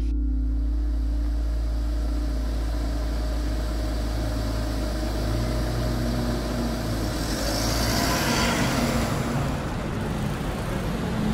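Road traffic ambience: a steady low rumble of motor traffic, with a vehicle passing and swelling loudest about eight seconds in.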